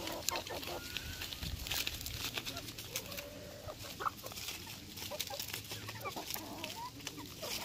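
A flock of Hmong mixed-breed chickens clucking in short scattered calls while they peck at lettuce leaves, with many quick sharp clicks of beaks snatching and tearing the leaves.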